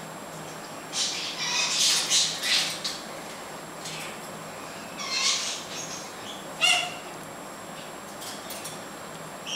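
Yellow-backed chattering lory giving harsh, scratchy calls in bursts: a run of them in the first three seconds, another about five seconds in, and a short sharp one near seven seconds.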